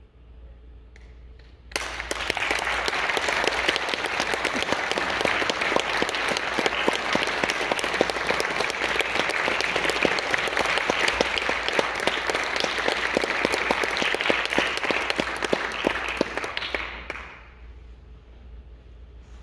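Audience applauding, a dense patter of many hands clapping. It starts abruptly about two seconds in, holds steady, and dies away a couple of seconds before the end.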